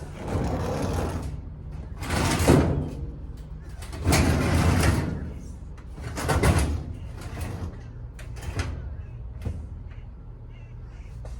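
Goods being dragged and shifted during loading: four scraping, sliding noises about two seconds apart, then a few light knocks, over a steady low hum.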